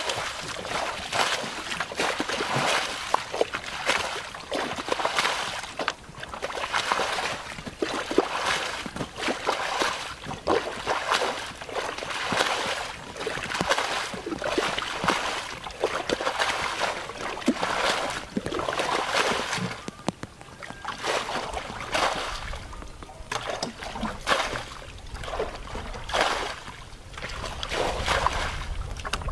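Shallow muddy water splashing and sloshing in irregular bursts as people wade through it and a large plastic barrel is pushed and dragged through the water.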